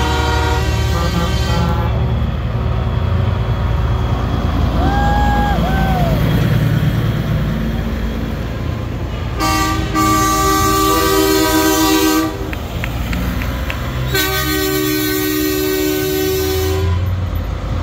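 Semi trucks rumbling past at low speed while their drivers blow air horns: two long horn blasts of about two and a half seconds each, around ten and fourteen seconds in, after the end of another blast at the start.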